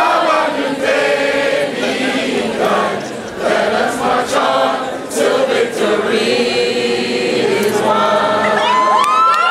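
A group of men chanting and singing together in unison, a fraternity probate chant, with a few sharp hits along the way. Near the end the audience breaks into whoops and whistles.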